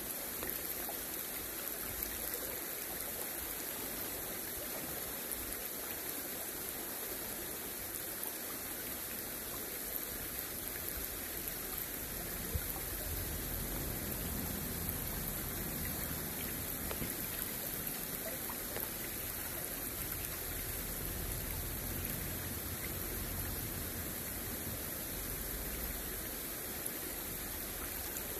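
Shallow river running over a stony bed: a steady rush and babble of water close to the microphone.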